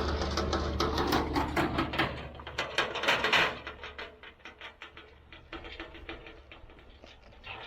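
A vehicle engine runs with a low hum and fades out about three and a half seconds in. Over it comes a quick, irregular run of sharp clicks and crunches that goes on more quietly afterwards.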